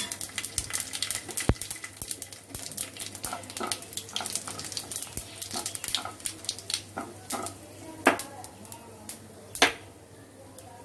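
Whole spices sizzling and crackling in hot mustard oil as they temper, with many scattered sharp pops and two louder sharp clicks about eight and nine and a half seconds in.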